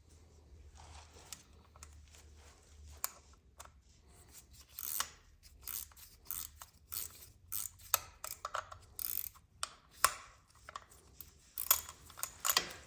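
Irregular metallic clicks and short scrapes of hand tools and small parts being handled during work on a motorcycle's oil filter, growing busier and louder from a few seconds in.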